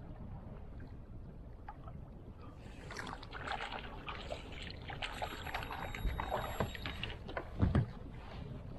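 Water sloshing against a plastic fishing kayak over a steady low rumble. From about three seconds in come scattered clicks and knocks, and one heavier thump near the end.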